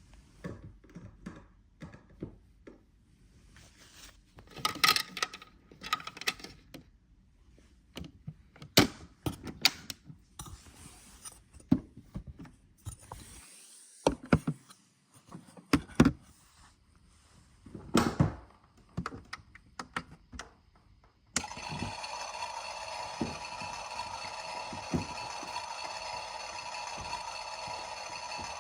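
Irregular knocks and thunks of a washing machine being loaded and its door and controls handled. About 21 seconds in, the machine starts suddenly with a steady hum carrying several held tones.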